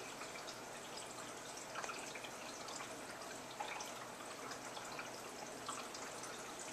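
Aquarium water trickling and dripping: a steady, fairly faint splash with many small plinks, a couple of them a little louder.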